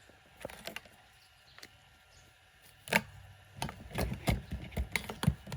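A few sharp clicks in the first two seconds, then a loud knock about three seconds in, followed by a quick run of knocks and thuds.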